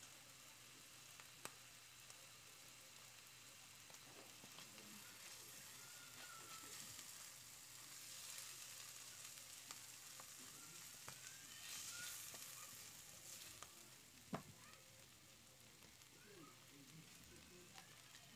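Faint sizzling of a mushroom, onion and garlic filling frying in oil in a pan, swelling while it is stirred in the middle. A single sharp knock rings out about fourteen seconds in.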